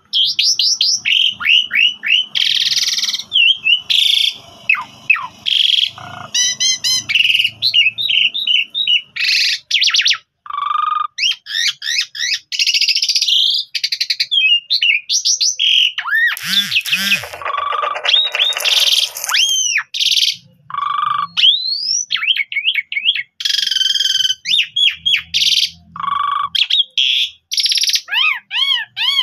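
Asian pied starling (jalak suren) singing a long, varied song: clear rising and falling whistles, rapid trills and harsh rasping notes strung together with only brief pauses.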